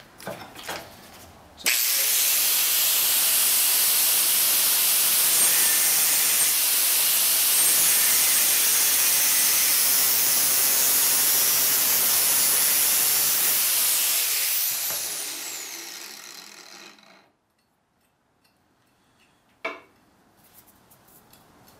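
Bosch angle grinder with a cutoff disc starting up about two seconds in and cutting through half-inch copper pipe, a loud steady grinding noise. When it is switched off, its whine falls in pitch as the disc spins down and fades out.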